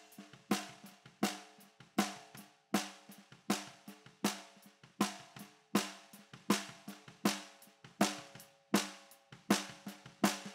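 Recorded acoustic snare drum played back through the Vertigo Sound VSM-4 harmonic-saturation plugin. A loud, ringing stroke comes about every three-quarters of a second, with softer ghost strokes between them.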